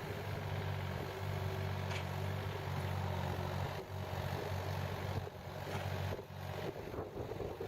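Hyundai HX160 excavator's diesel engine running steadily, with a few faint knocks.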